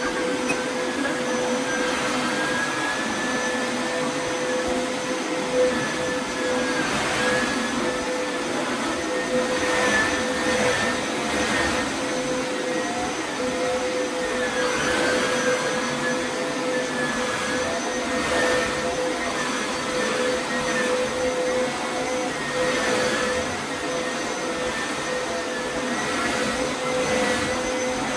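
Hoover Elite upright carpet shampooer running: a steady motor whine with a wavering higher tone over a rushing suction hiss. The sound swells and eases every few seconds as the machine is pushed forward and pulled back over the carpet.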